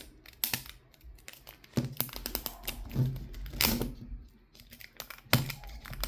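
Small plastic packaging being handled: crinkling and tearing of a thin plastic wrapper, with scattered sharp clicks and rustles at an uneven pace.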